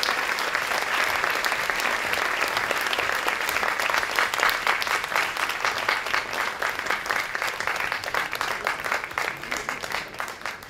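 Audience applauding. The dense clapping thins into more separate claps toward the end and fades out.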